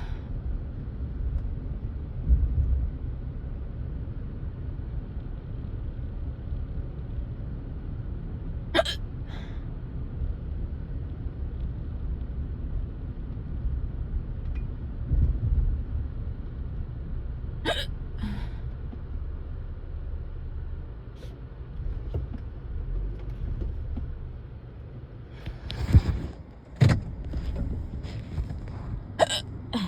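A person hiccupping inside a moving car: sharp single hiccups about nine seconds apart, then several closer together near the end, over the steady low rumble of the car's road and engine noise.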